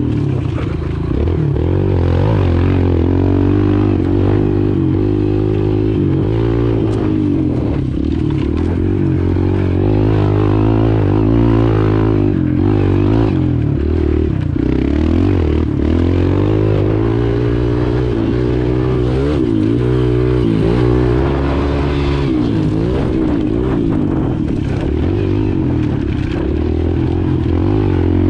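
A Kawasaki KLX pit bike's small single-cylinder four-stroke engine revving up and down again and again as it is ridden through the turns of a dirt track, heard close from the rider.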